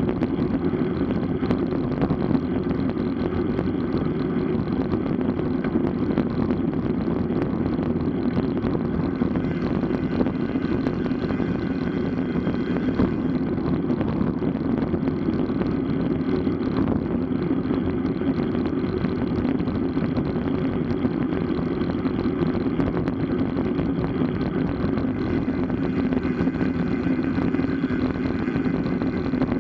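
Steady wind rush on the microphone and tyre noise from road bicycles riding at a constant pace, with no letup.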